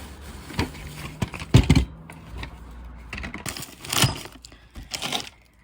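Irregular clicks, taps and rustles of small objects being handled and moved about, with the loudest knocks about a second and a half in and a longer rustle around four seconds in.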